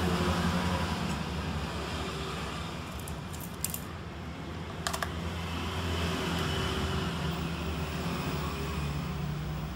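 Steady low electrical hum under an even hiss, with a few light clicks about three and a half and five seconds in.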